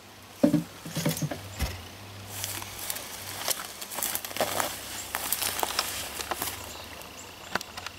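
Footsteps and rustling through dense undergrowth, with many scattered crackles of leaves and twigs underfoot and against clothing.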